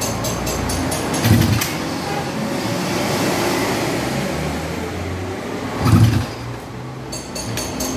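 Tuned single-cylinder underbone motorcycle engine running and being revved by hand at its carburettor, with two sharper surges about a second in and near six seconds. It is the engine's test run after a compression leak at a too-thin cylinder gasket was repaired. Background music plays faintly at the start and end.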